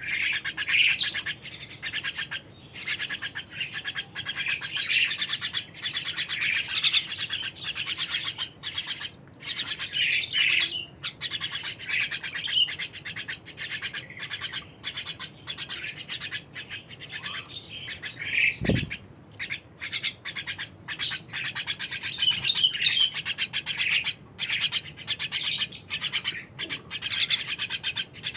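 A kacer air bird singing steadily, a fast, busy run of chirps, whistles and warbles that keeps going without a break.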